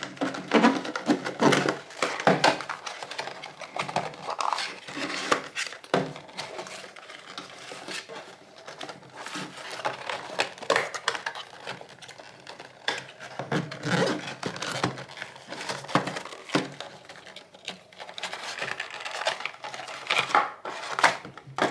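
A small cardboard-and-plastic retail box being opened and unpacked by hand: irregular rustling, crinkling, tearing and light knocks of the packaging and its contents.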